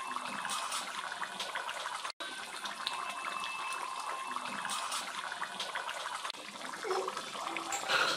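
Fish curry boiling hard in a wide aluminium pan: a steady bubbling and popping. A brief louder knock comes near the end.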